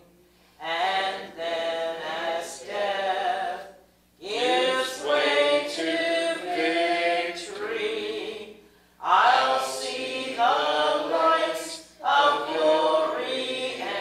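A hymn sung without accompaniment, in long sung phrases broken by brief pauses for breath, about four times.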